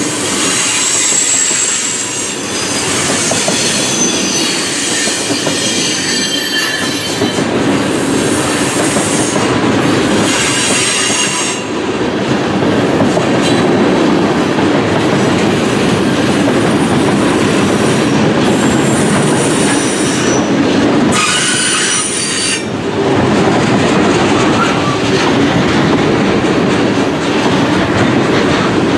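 Freight cars rolling past close by: a steady loud rumble of steel wheels on the rails, with clacking over the rail joints. High-pitched wheel squeal comes and goes several times.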